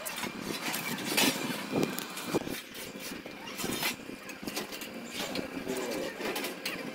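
Scattered knocks and clicks from hand work on a stainless steel stair railing, over steady outdoor background noise.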